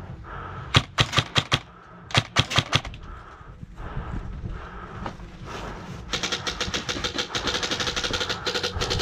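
Airsoft guns firing: two quick strings of about six shots each in the first three seconds, then a long rapid full-auto burst of clicking shots from about six seconds in.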